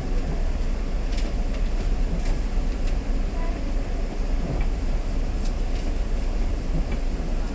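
A stationary city bus heard from inside the cabin: its engine keeps up a steady low rumble. Over it run an even rain hiss and a few faint ticks.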